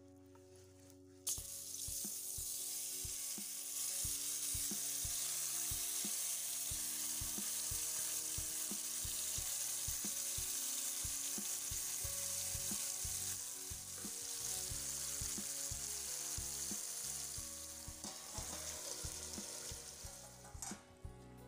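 Sliced potatoes frying in hot oil in a pan, sizzling loudly. The sizzle starts suddenly about a second in, holds steady, and dies down near the end.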